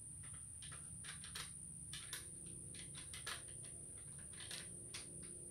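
Faint, irregular clicks and taps of a pressure washer's metal spray wand and quick-connect fitting being handled and worked, over a steady low background hum.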